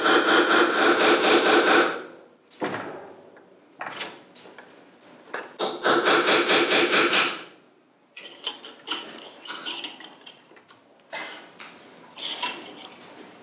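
Small ball-pein hammer tapping a brass drift against a motorcycle fork's dust cover to work it up off the fork leg. There are two runs of rapid, evenly spaced taps: one stops about two seconds in, the other comes about six to seven seconds in. Lighter clicks and rattles follow as the loosened cover is moved by hand.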